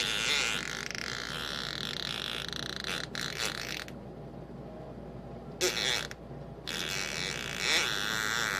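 Long, spluttering fart sounds in three bursts: a long one of about four seconds, a short one partway through, and another of a couple of seconds near the end.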